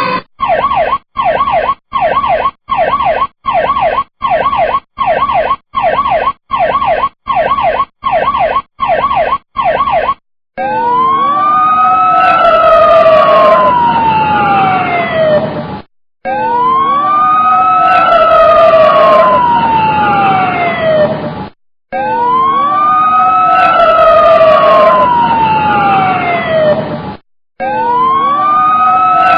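Siren sound effects in two patterns. First comes a fast series of short falling yelps, about one and a half a second. About ten seconds in, it changes to a slow wail that rises quickly and falls slowly, repeating about every five and a half seconds with short breaks between cycles.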